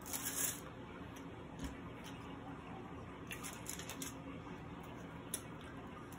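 Chewing a bite of garlic butter shrimp flatbread: soft wet mouth clicks and smacks. One cluster comes at the start, another about three to four seconds in, and a single click comes near the end.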